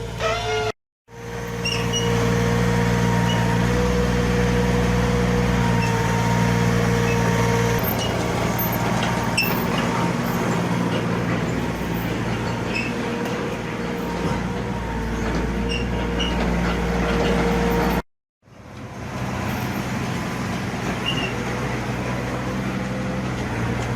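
Mini excavator's diesel engine running steadily under work, with a steady whine above the engine note and scattered small knocks. The sound shifts about a third of the way in and drops out abruptly twice.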